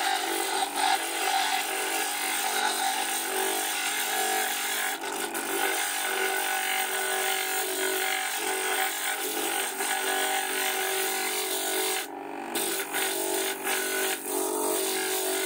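Stone being ground against the spinning disc of a wet flat-lap lapidary grinder while a cabochon's edges are shaped: a steady grinding hiss over the machine's motor hum. The hiss breaks off briefly about twelve seconds in.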